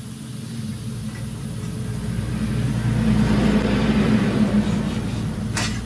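Low rumble of a passing motor vehicle that swells to a peak a few seconds in and then fades, with a short sharp click near the end.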